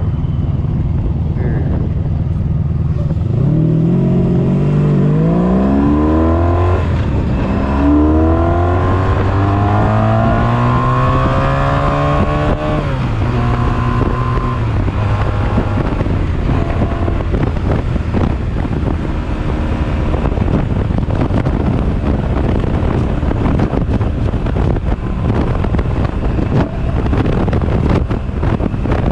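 1983 Honda Sabre 750's V4 engine revved hard at highway speed to burn off carbon, its pitch climbing through one gear, a shift about seven seconds in, then climbing again before dropping back about halfway through. Heavy wind buffeting on the microphone runs under it.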